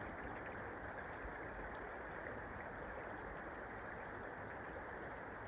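River water flowing: a steady, even rush of water.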